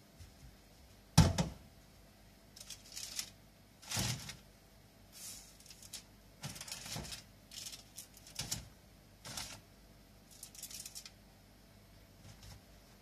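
A metal baking tray set down on a stainless-steel sink with a sharp knock about a second in, then a run of short soft knocks and paper rustles as baked bread rolls are lifted by gloved hands into a paper-lined wicker basket.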